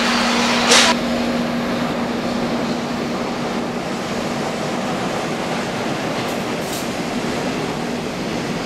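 Freight train rolling past: a steady rush of wheels on rail, with one sharp clack about a second in. A steady hum runs through the first few seconds, then fades.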